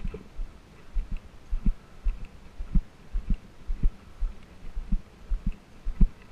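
Footsteps on a dirt trail at a steady walking pace, heard as dull low thumps about two a second.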